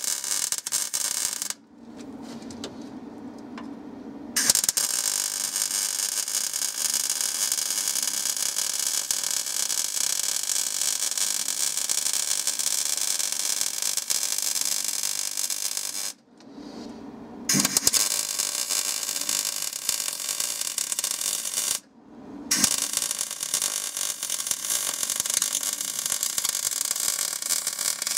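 Electric arc welding on steel bodywork: the arc runs steadily in long passes, stopping sharply for a moment a little past halfway and again a few seconds later, as a bracket is welded in place.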